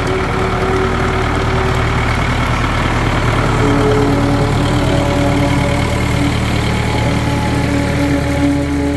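Vintage Hürlimann tractor engine running at low revs as it passes close by, a steady low drone. A few long held musical notes sound above it.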